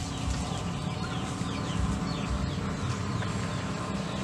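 Chickens calling: a run of short, high, falling peeps through the middle, over a steady low rumble.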